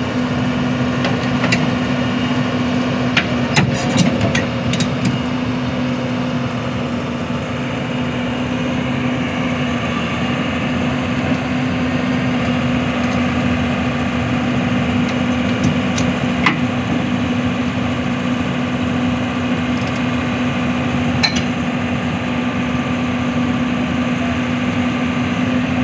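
Heavy machine engine running at a steady pitch, with a few sharp metallic clanks: a cluster about three to five seconds in, then single ones around sixteen and twenty-one seconds.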